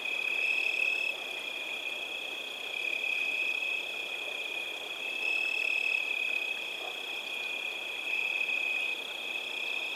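A chorus of frogs trilling steadily and high-pitched, swelling louder about every two to three seconds.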